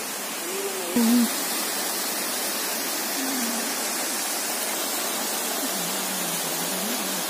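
Water from a small rock cascade running: a steady rushing hiss. About a second in there is a brief louder tone, and a few faint wavering low tones come later.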